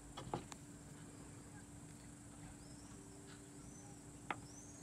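Faint outdoor insect drone, a steady high cricket-like trill, with a few faint high chirps over it. A few soft handling clicks near the start and one sharper click about four seconds in.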